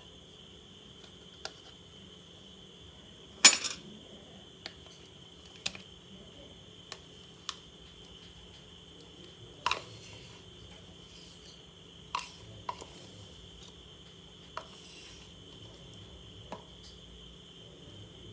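A spoon and whisk clinking and scraping against a glass mixing bowl and a plastic cream tub while thick double cream is scooped out. There are about a dozen short, sharp clinks, the loudest about three and a half seconds in. A steady high-pitched whine runs underneath.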